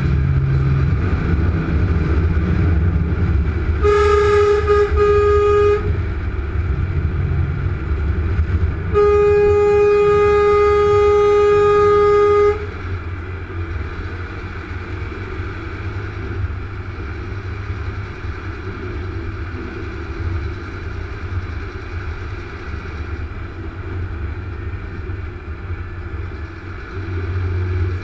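Truck horn sounding twice over the steady low drone of the truck's engine and road noise in the cab: a blast of about two seconds, then a longer one of about three and a half seconds, each held on one steady tone.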